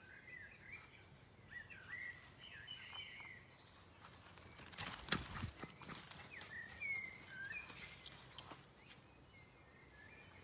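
A miniature pinscher scampering across a grass lawn during ball play: a burst of quick footfalls and rustling thuds about halfway through, the loudest part, with short high chirps on and off through the rest.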